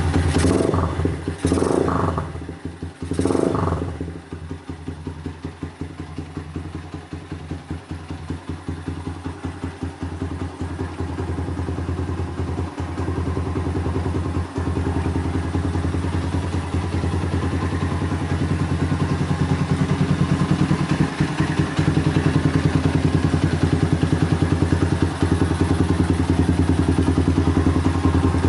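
Custom Honda Mega Pro bobber's single-cylinder four-stroke engine revved three times in quick succession with twists of the throttle, then settling into a steady, evenly pulsing idle that grows gradually louder.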